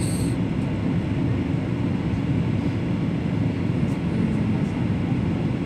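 Steady cabin noise of an airliner in flight, heard from inside the passenger cabin: an even, deep rush of engines and airflow.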